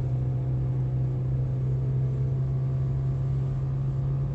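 Steady low hum and road rumble inside the cabin of a 2007 BMW 525xi rolling at speed, holding one even pitch. It is the speed-related drivetrain noise that the driver suspects is an early-stage failing CV axle.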